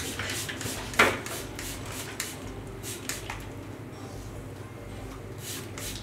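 Hand trigger spray bottle misting treatment water onto wet hair: a quick run of short hissing sprays in the first three seconds, the sharpest about a second in, then another spray shortly before the end.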